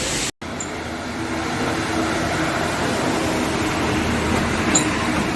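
A motor vehicle's engine running steadily with a low hum, under a constant wash of road or water noise. The sound cuts out for a moment near the start, then comes back.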